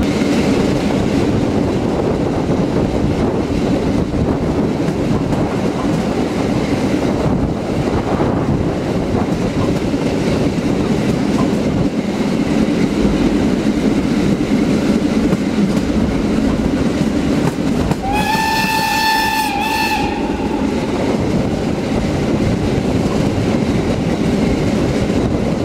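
Steam train running, heard from aboard a carriage: a steady rumble of wheels on the rails. About two-thirds of the way through, the locomotive's steam whistle sounds once for about two seconds.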